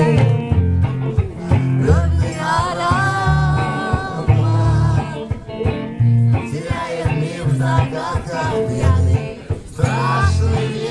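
Live band music: a singer over guitar and a bass line.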